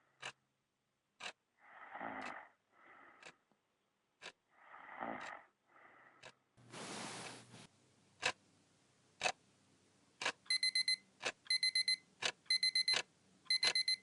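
A clock ticking about once a second over slow, breathy sleeping breaths, then a short hiss. About ten seconds in, a digital alarm clock starts beeping in rapid bursts while the ticking carries on.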